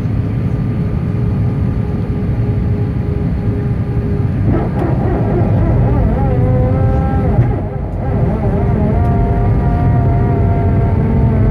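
Airbus A319 cabin noise on approach: a loud, steady rumble of engines and airflow with a faint steady whine. About halfway through, higher whining tones join in and waver and shift in pitch.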